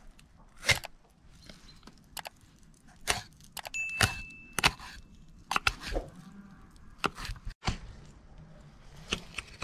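Irregular sharp knocks and clicks, about a dozen, with a brief high ringing tone about four seconds in.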